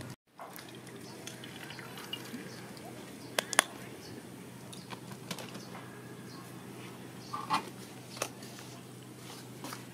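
Outdoor background ambience: a steady low hum with scattered small clicks and knocks, the sharpest about three and a half seconds in, after a brief gap of silence at the very start.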